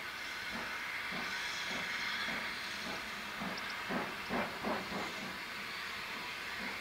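Great Western steam locomotive working slowly under steam: its exhaust beats about twice a second over a steady hiss of steam. The beats grow louder about four seconds in.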